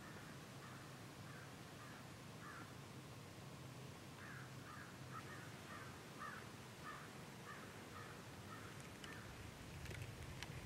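A crow cawing faintly in a string of short, harsh calls: a few spaced caws, then a quicker run of about ten from about four seconds in.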